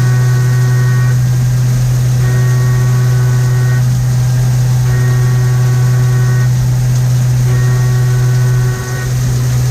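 CNC milling machine running a machining cycle: a loud steady low hum, with a higher whine of several tones that comes and goes about every two and a half seconds.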